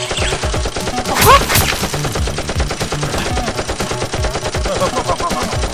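Rapid automatic gunfire, a dense run of quick repeated shots, loudest a little over a second in.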